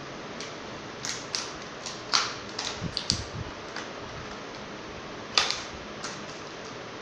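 Small hard plastic toy beauty pieces clicking and clacking against a plastic case tray as they are picked through: a run of light clicks and clacks, then another sharp clack after about five seconds.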